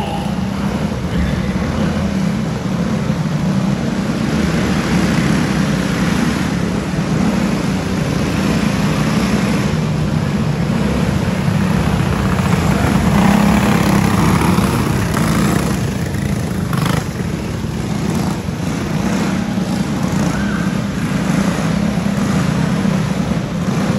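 Several racing go-karts' small engines running together in a steady drone as the pack laps a dirt oval, growing louder around the middle as the karts pass close by.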